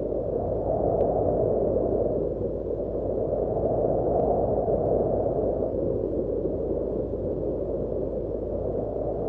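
Steady low rushing noise with a deep hum beneath it, swelling and easing slightly, a sound effect in an audio drama.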